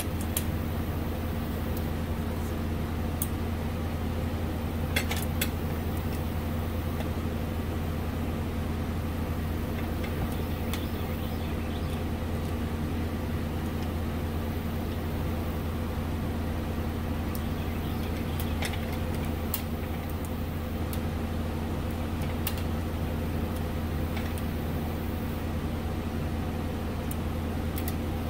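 A steady low machine hum runs throughout, with a few scattered light metallic clicks and taps as a metal brake line is handled and bent by hand.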